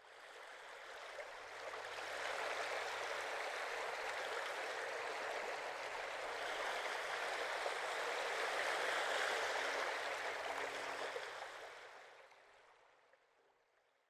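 A steady rushing noise, like running water, fading in over about two seconds, holding, then fading away shortly before the end.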